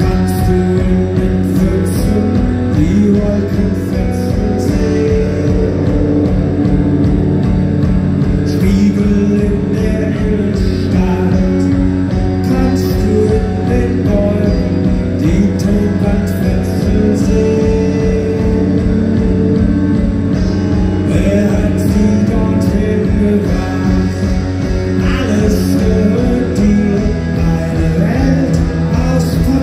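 Rock band playing live: electric guitars over bass and a steady, even drum beat.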